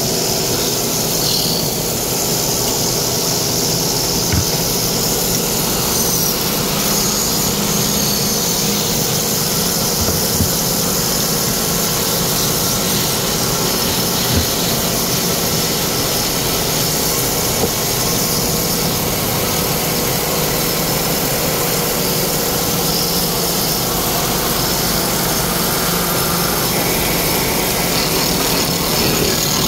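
Belt-driven wood lathe running while a hand chisel cuts a spinning wooden blank into a handle, giving a steady, high-pitched cutting noise over the hum of the drive, with a few light knocks.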